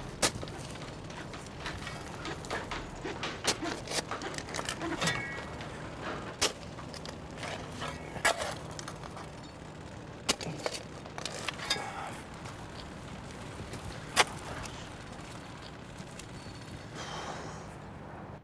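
Shovel digging into gravelly soil: irregular scrapes and sharp strikes of the blade against dirt and stones, over a steady background hum.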